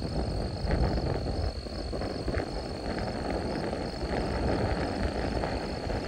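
Gusty wind buffeting the microphone outdoors ahead of a severe thunderstorm, a steady low rumble rising and falling with the gusts. A faint high tone pulses evenly throughout.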